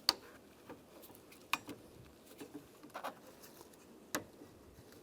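Scattered sharp clicks and taps of a plastic interior door handle and its cable clips being handled while a lock cable is lined up in the handle's slot, about one click every second or so.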